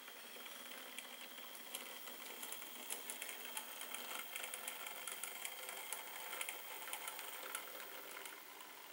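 Model ex-Lancashire and Yorkshire Railway pug, an 0-4-0 saddle tank with a DCC decoder, running along the track: its small electric motor whirs quietly under rapid, light clicks from the wheels on the rails. The running is a little uneven but not too bad.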